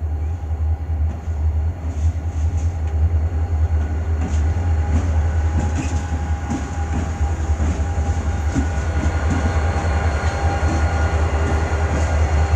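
CN freight train rolling slowly past, its wheels clicking over the rail joints more and more often from a few seconds in, over a steady deep rumble with wind on the microphone.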